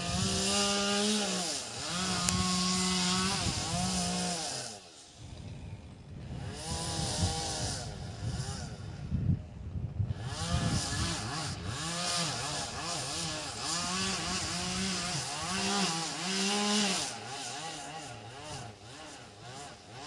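Chainsaw cutting through the trunk of a tall Douglas fir to take its top off, heard from far below. It runs at high revs in long stretches, its pitch sagging and recovering as it bites, and eases off briefly about five and ten seconds in.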